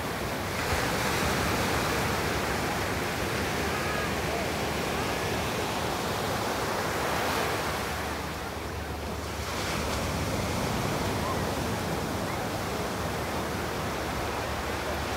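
Ocean surf washing up the beach: a steady rush of small breaking waves that eases briefly about eight seconds in and then builds again.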